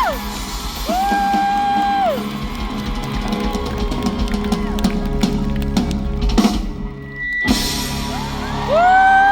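Live rock band playing an instrumental passage: a drum kit keeps time under long held lead notes that slide up into pitch and fall away at their ends. About seven seconds in the drums briefly drop out before the band comes back in.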